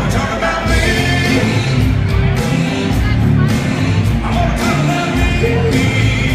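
Loud dance music with a singer and a steady bass beat.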